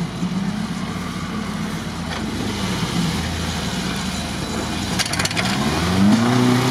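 Off-road UAZ's engine running steadily in low gear, then revving up with a rising pitch near the end as it pushes through deep mud. A brief clatter of clicks comes about five seconds in.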